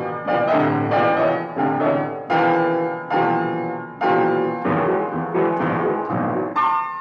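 Acoustic piano tone clusters: dense blocks of adjacent notes struck together, a new cluster about every half to three-quarters of a second. Each strikes sharply, then rings and fades before the next.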